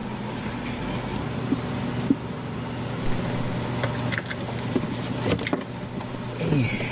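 Car engine idling with a steady low hum, with a few small clicks and knocks along the way.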